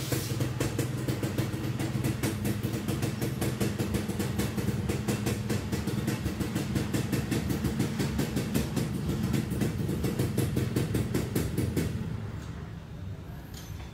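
Two-stroke underbone motorcycle engine (Suzuki Satria type) idling steadily with a rapid, even beat, then cutting out about twelve seconds in.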